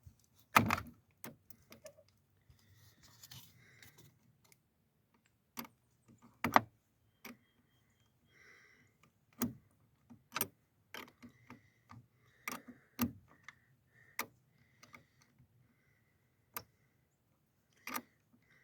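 Irregular metallic clicks, clinks and knocks of hand tools and metal parts being worked at a car battery terminal clamp and its bolt, with a couple of louder knocks early on and near the middle.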